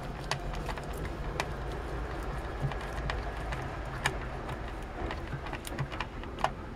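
Small screwdriver turning a screw into the plastic housing of a Tickle Me Elmo giggle box: a few scattered small clicks and creaks over a steady low hum.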